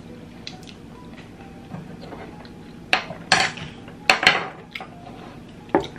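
Glass gravy bowl and eating utensils being handled: a handful of sharp clinks and knocks, most of them bunched between about three and four and a half seconds in, with one more near the end.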